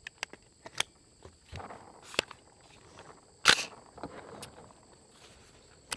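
Scattered short clicks and knocks of hands handling gear, about eight in all, with one louder, sharper clack about three and a half seconds in.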